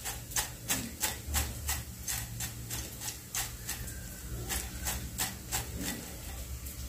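Crisp fried bitter gourd (karela) chips tossed in a glass bowl, rattling against the glass in sharp clicks about three times a second.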